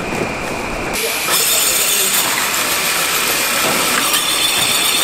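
Confectionery cutting machine with a row of rotary blades running, a steady mechanical noise with hiss. It gets louder and brighter about a second in.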